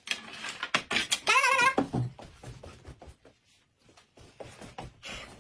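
Scattered light clicks and knocks of chopsticks and tableware being set down and moved on a table, busiest in the first two seconds. There is a short warbling vocal-like sound about a second and a half in.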